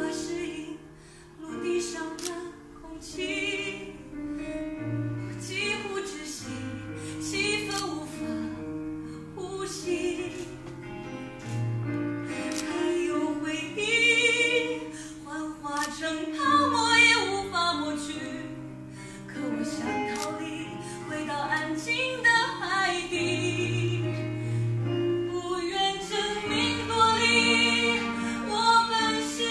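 Music with a woman singing a slow melody over held low notes, cutting in suddenly at the start.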